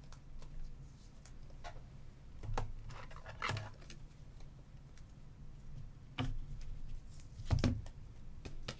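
A stack of Donruss basketball cards being thumbed through by hand: scattered soft clicks and slides of card stock against card, the louder ones about two and a half, three and a half, six and seven and a half seconds in. A low steady hum sits underneath.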